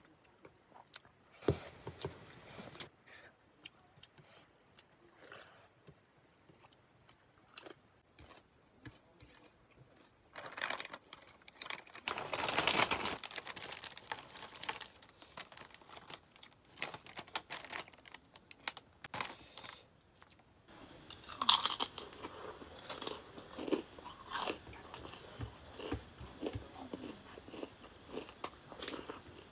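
Close-miked eating sounds: chewing of fish curry and rice with scattered clicks, then a plastic snack packet rustling as potato crackers are poured onto the plate about a third of the way in. In the last third, a sharp crunch is followed by repeated crisp crunching of the potato crackers.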